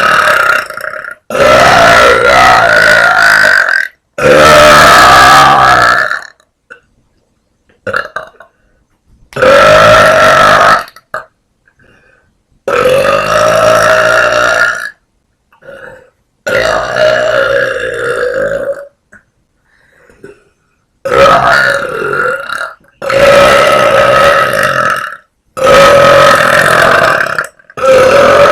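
A woman's very loud burps, made by swallowing air: about ten long burps in a row, each lasting one to two seconds, with short silences between them.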